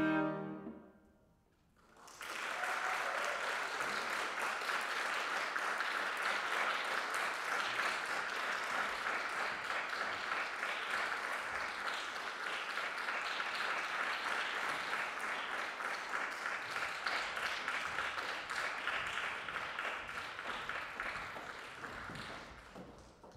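The last chord of a bowed-string and piano piece dies away in the first moment. After a brief pause, an audience applauds steadily for about twenty seconds, and the applause tapers off near the end.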